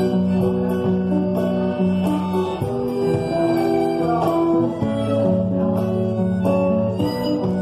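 Live music from a small band, led by guitar with a steady bass line underneath, playing an instrumental passage.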